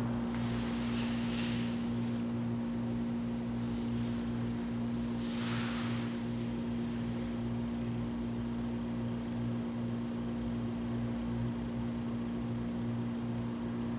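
A steady low hum with a slow, regular throb beneath it. Two soft swishes come through about a second in and again about five seconds in.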